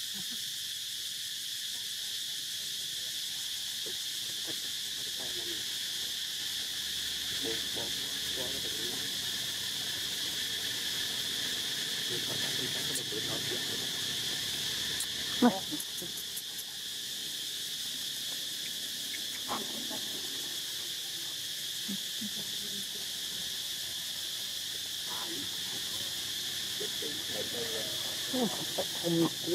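Steady high-pitched drone of insects, with one sharp click about halfway through and a few short faint sounds near the end.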